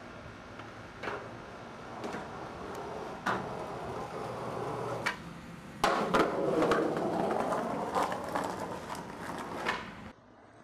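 Skateboard wheels rolling on concrete, with a sharp clack of the board every second or so. The rolling gets louder about six seconds in and stops suddenly near the end.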